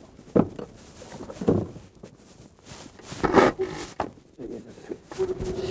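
Small outboard motor on an inflatable dinghy being pull-started: a few short pulls on the starter cord, the loudest about three seconds in, then the engine catches near the end and settles into a steady run.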